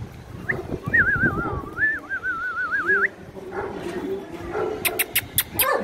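A puppy whining in a high, wavering, trilling tone for about two seconds. Near the end there is a quick run of sharp clicks.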